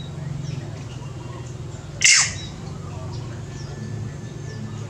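A single shrill, squawking animal call about two seconds in, a fraction of a second long and sweeping down in pitch, over a steady low hum.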